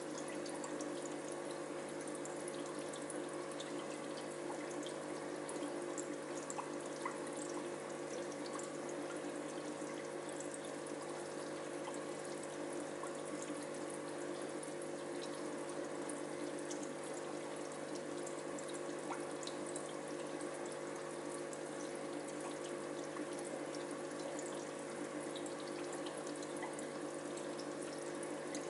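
Aquarium filter running: steady trickling, splashing water over a constant low hum.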